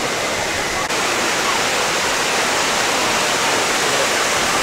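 Steady rush of falling water, a loud even hiss with no break.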